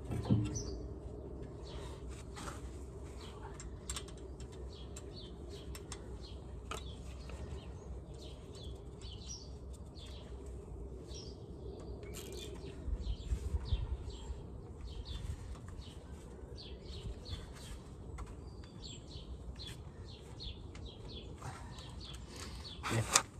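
Birds chirping and singing, with a few faint clicks of hand work and a brief low rumble a little past halfway.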